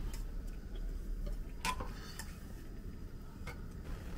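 A spoon clinking and scraping against a metal camping bowl as food is scooped, a few sharp separate clinks over a low steady rumble.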